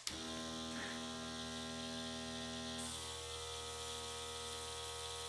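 Airbrush compressor starting with a click and running with a steady electric hum, with air hissing through the airbrush as it sprays. The hum and hiss shift about three seconds in. The diluted yellow acrylic is too thick and is not flowing through the airbrush as fully as it should.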